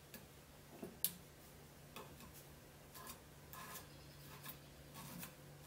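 Faint crackling and ticking of double-sided grip tape being folded around a golf club shaft and pressed down by hand, with one sharper tick about a second in.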